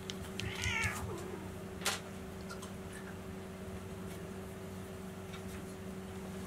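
A cat gives one short, wavering meow about half a second in, then a sharp click about two seconds in, over a steady low hum.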